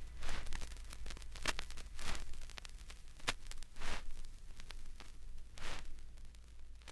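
Soft rustling swishes and sharp crackles, irregularly spaced, over a low steady hum.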